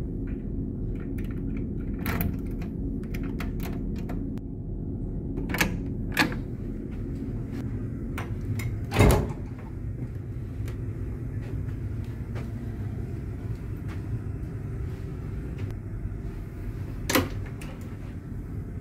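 A key and lock clicking in a cabin door and the door handle rattling, then the cabin door knocking shut about halfway through, the loudest sound, with a few lighter clicks after. Under it all runs the ship's steady low hum.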